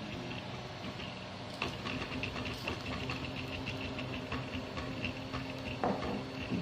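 3D printer running: its stepper motors hum at steady pitches while the print head moves, with a quick run of light ticks and a few sharper clicks near the end.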